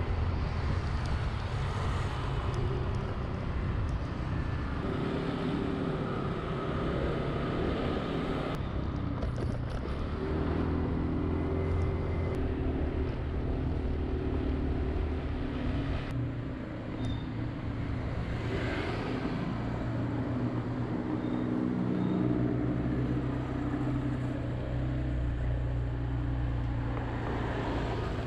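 Engine and road noise from a vehicle being driven through city traffic, the engine note rising and falling with speed, with a few short clicks.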